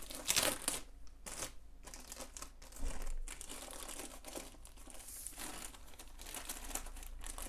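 Clear plastic wrapping crinkling and rustling as hands pull it off a rolled diamond painting canvas, in uneven handling noises with louder bursts near the start and again about three seconds in.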